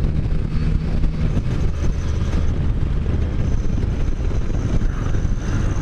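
Can-Am Spyder three-wheeled motorcycle's engine running steadily under way, with wind rushing over the microphone.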